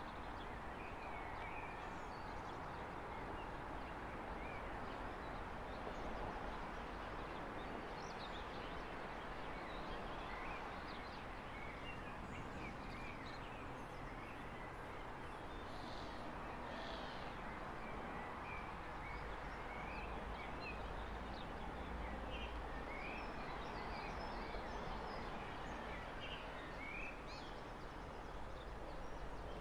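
Small birds chirping and calling repeatedly, in short scattered notes over a steady outdoor background noise.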